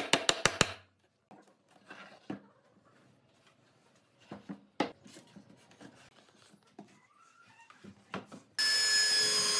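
Woodworking sounds: a rapid run of clicks that stops about a second in, then quiet knocks and rubbing of wood. Near the end a power tool starts up with a steady, loud, whining noise.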